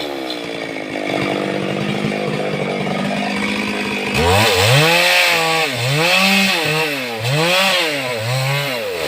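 Stihl two-stroke chainsaw running at a fairly steady pitch for about four seconds, then revved up and down about six times in quick succession.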